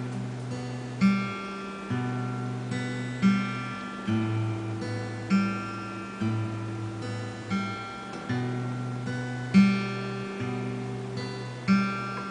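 Alvarez acoustic guitar played solo: chords sounded with a sharp accent about once a second, the bass note shifting as the chords change.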